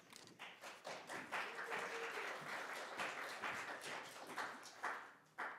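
A small audience clapping. It builds within the first second and thins out near the end, finishing with a last few claps.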